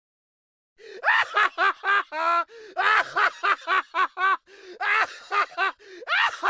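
A person laughing: a high-pitched run of quick ha-ha pulses, about four or five a second, that starts about a second in and goes on with short breaks for breath.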